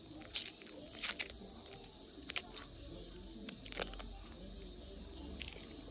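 Small sweet wrapper crinkling as it is unwrapped by hand, in four or five short, sharp rustles.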